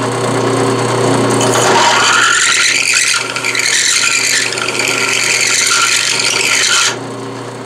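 Drill press running with a step bit grinding against the edge of a drilled hole in a steel control arm, deburring the underside: a harsh rasping scrape over the motor's steady hum. The scraping stops about seven seconds in while the motor keeps running.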